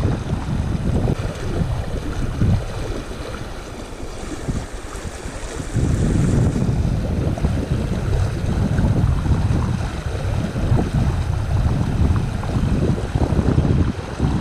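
Wind buffeting the microphone over the steady rush of river rapids. The gusts ease briefly about a third of the way in, then pick up again.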